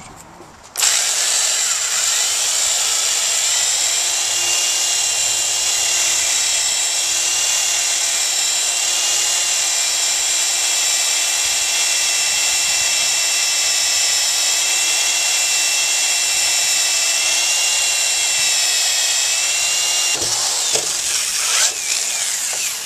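Power drill running at a steady speed with a steady motor whine, its bit boring through the plastic top of a 55-gallon plastic barrel. It starts about a second in, holds steady, changes briefly near the end and then stops.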